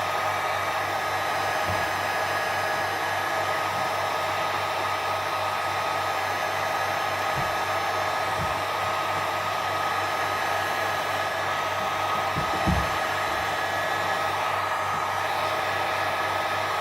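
Hot-air heat gun blowing steadily, a constant rush of air with a steady whine, heating a phone's back glass to soften the adhesive. There is a light knock about twelve seconds in.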